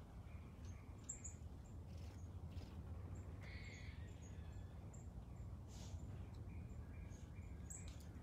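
Faint, short, high-pitched animal calls, a few chirps and a longer call about three and a half seconds in, over a low steady hum.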